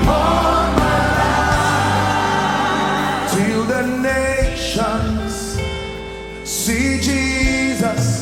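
Gospel worship music: a choir of voices singing with a band playing a steady bass line.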